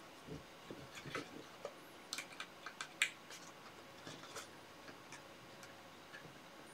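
Small, sharp clicks and ticks from a sheet of paper being handled and pressed on a desk. They come irregularly and bunch together a couple of seconds in, the loudest click just after that, then thin out.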